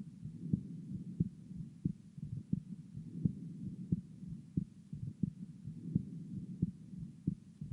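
Recorded human heart sounds: regular low thumps of the heartbeat, about one and a half a second, over a steady low rumble.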